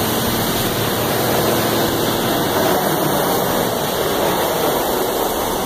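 Concrete boom pump truck's engine running steadily.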